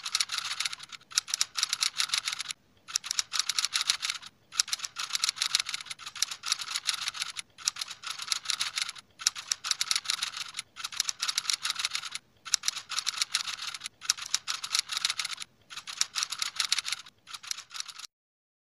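Computer-keyboard typing sound effect: runs of rapid key clicks broken by short pauses, stopping near the end.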